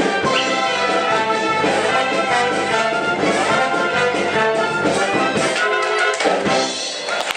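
Theatre orchestra with prominent brass playing the closing bars of an operetta number, live.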